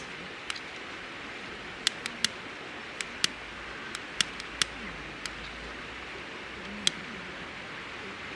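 Wood campfire crackling: sharp, irregular pops, about a dozen of them, over a steady rushing background.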